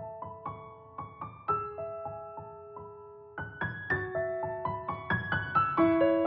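Background piano music: slow single notes and chords, each ringing on as it fades, growing fuller and louder about three and a half seconds in.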